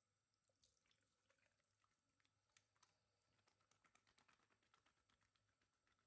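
Very faint, irregular splashing and dripping of a thin stream of tap water falling into a ceramic bathroom sink, starting about half a second in.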